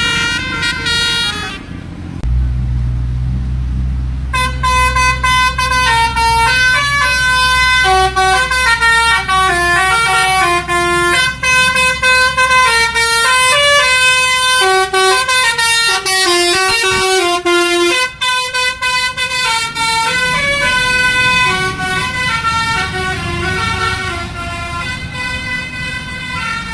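Telolet basuri multi-tone bus horn playing a melody of quick stepped notes. A low steady rumble comes for about two seconds before the tune starts.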